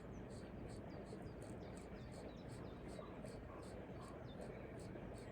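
Faint outdoor ambience: small birds chirping briefly over a steady low rumble, with a high ticking repeating about four times a second.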